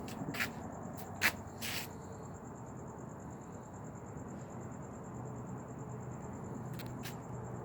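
Steady high-pitched insect trill, with a few sharp clicks in the first two seconds and two more near the end, over a low rumble.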